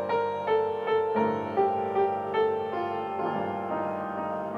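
Piano music: a gentle melody of struck notes, a new note about twice a second, each ringing on into the next.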